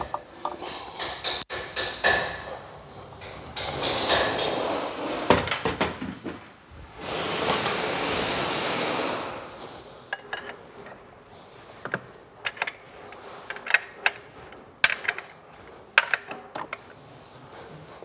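Metal hand tools clicking, clinking and knocking against engine parts as a wrench is used to remove the guide bushing from the newly fitted high-pressure diesel fuel pump. A steady rushing noise lasts about two seconds around the middle.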